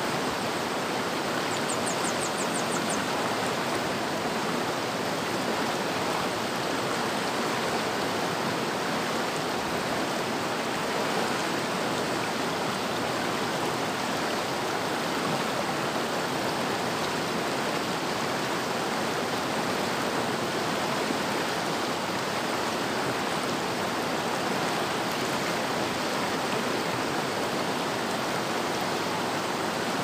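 River water flowing steadily, a constant, even rush of water with no change in level. A brief, high, rapid trill sounds about two seconds in.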